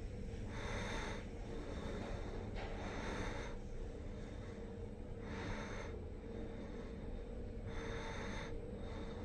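OTIS SIGMA Si1 traction elevator car travelling upward at speed: a steady hum with a faint low tone, and short hissing rushes about every two and a half seconds.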